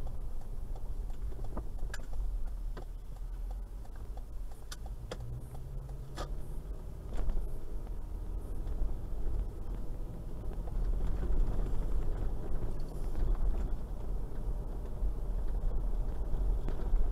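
Toyota Land Cruiser Prado 120 driving slowly in town: a steady low engine and road rumble, with a few short clicks in the first several seconds. The rumble grows somewhat louder partway through.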